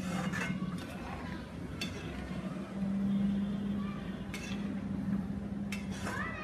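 Kitchen utensils giving a few short, sharp clinks over a steady low hum.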